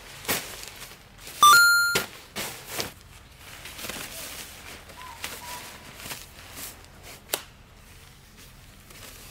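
White pop-up tent being folded down: fabric rustling and the frame flexing, with a few sharp clicks. About one and a half seconds in comes a short, loud electronic beep that steps up in pitch, then fades.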